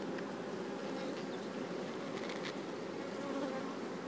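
Many honeybees buzzing steadily around an opened hive during a frame inspection, a continuous even hum from a strong colony.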